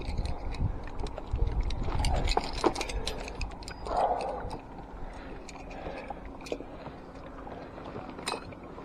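Scattered small knocks, clicks and rustles of a landing net and fishing gear being handled in a wooden rowing boat, with a low rumble through the first few seconds that then fades.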